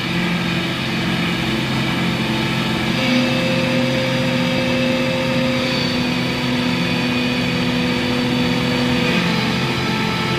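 Dungeon synth music: sustained, droning synthesizer tones, with a held low note coming in about three seconds in and dropping out near the end.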